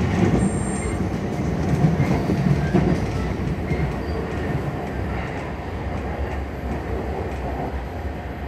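Cabin noise of a Keiyō Line electric commuter train running on its rails: a steady rumble of wheels on track with some clickety-clack, growing gradually quieter as the train nears Minami-Funabashi station.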